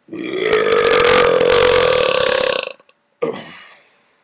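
A man's long, loud burp lasting about two and a half seconds at a steady pitch, followed about three seconds in by a shorter sound that starts sharply and fades away.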